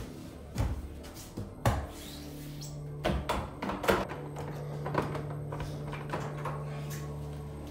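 A doorknob being grabbed and a wooden door rattled and bumped, heard as a scatter of sharp knocks and clicks, over quiet background music with held low notes.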